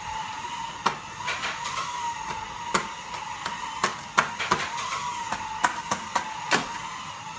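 Electric slot-car motors whining steadily, at a slightly wavering pitch, with irregular sharp clicks and knocks over it.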